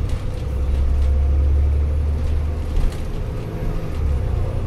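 Dennis Trident double-decker bus heard from inside the lower deck while driving: a low engine and drivetrain rumble that swells for a couple of seconds and then eases, with a faint steady whine and a brief knock about three seconds in.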